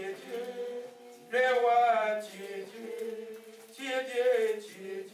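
A man's voice singing a slow worship chant in long phrases, one about a second and a half in and another near four seconds, over steady held notes.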